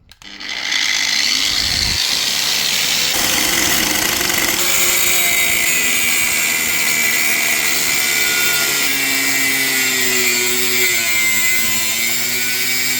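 A power tool's thin abrasive cutting disc spins up and cuts through the metal drum of a blank-firing revolver, making a steady, loud, high grinding whine. Its pitch wavers under load near the end.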